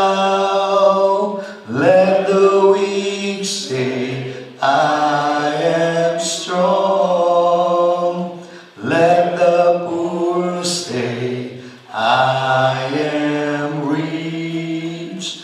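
Slow singing in long, held notes, in phrases of about two to four seconds with short breaks between them.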